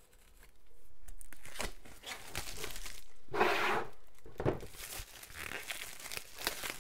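Clear plastic wrapping crinkling and tearing as a folded paper game map is pulled out of it, in a run of rustles and small crackles, with the loudest rustle about three and a half seconds in.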